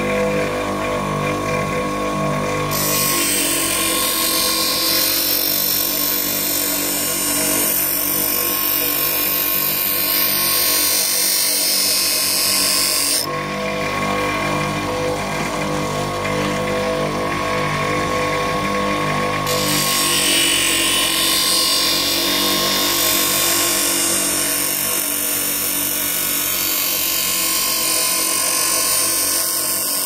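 Bench grinder motor running with a steady whine while a steel knife blank is ground against the wheel to cut the blade bevel, a loud hissing grind. The grind eases off at about thirteen seconds, leaving the wheel spinning with lighter contact, and comes back at about twenty seconds.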